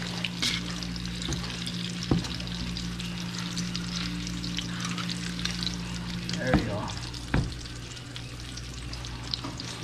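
Two whole coated papio (young yellow spot trevally) frying in oil in a stainless steel pan, sizzling and crackling steadily over a low hum. A few sharp clinks of metal tongs against the pan.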